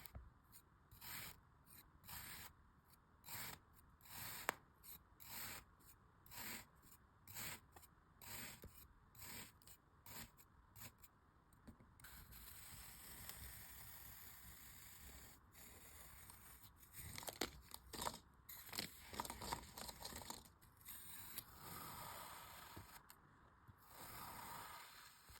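Faint scrapes of a blade slicing through kinetic sand, about one cut a second. About halfway through they give way to a steadier scraping and crumbling, with a few sharp clicks.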